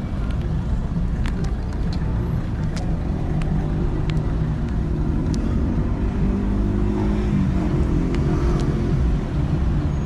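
Motor vehicle engine running close by as a steady low rumble, its pitch rising a little about halfway through, with a few faint ticks over it.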